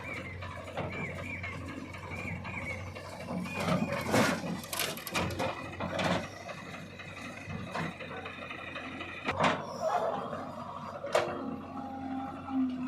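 Metallic knocks and clanks of machinery work over a steady low engine hum, with a handful of sharp knocks spread through; near the end a steady squeal-like tone sets in.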